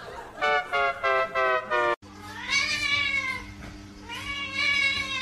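A cat meowing four times in quick short calls, then, after a cut, a cat yowling in two long cries that rise and fall, over a steady low hum.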